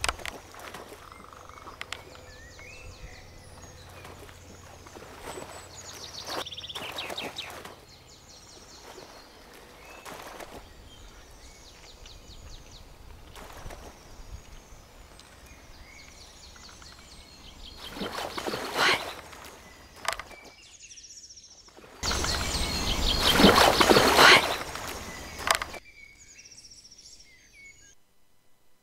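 Marsh ambience with small birds chirping now and then. Loud bursts of rushing noise break in twice, once briefly and once for about four seconds near the end.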